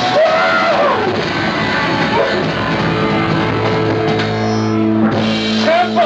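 Live rock band playing loudly on electric guitar, bass and drums. About four seconds in, the band settles onto a long held note.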